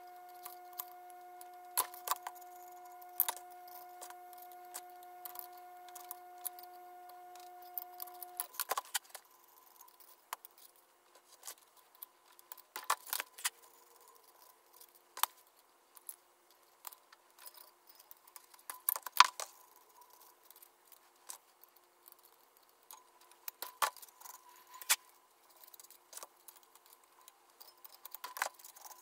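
Wrench clinking against the steel cylinder studs of a Sea-Doo 951 engine as the studs are snugged down: scattered sharp metallic clicks and clinks, the loudest about nineteen seconds in. A faint steady hum runs underneath and stops about eight seconds in.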